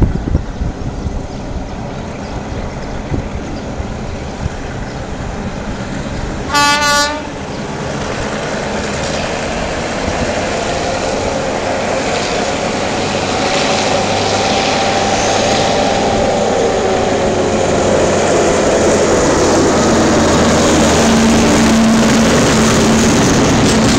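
Alsthom diesel locomotive 4137 gives one short horn blast about seven seconds in. Its engine then grows steadily louder as it approaches and draws past at the head of a train of cement hopper wagons.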